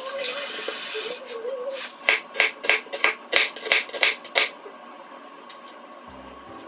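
A cat yowls in a long wavering cry at the start. Then a kitchen knife chops through an onion onto a wooden cutting board, about nine sharp cuts in quick succession. A few low music notes begin near the end.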